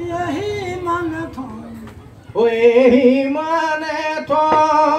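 Men's voices singing a chanted Assamese folk song. One voice sings for the first two seconds, then a louder voice takes over from about halfway. There is a single sharp strike near the end.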